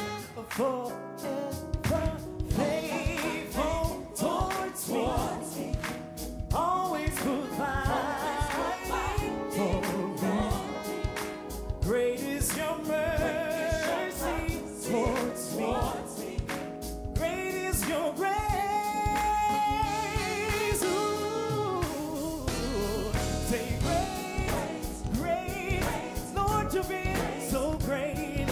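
Male gospel singer singing into a handheld microphone over band accompaniment with a steady beat, holding long notes and bending through vocal runs.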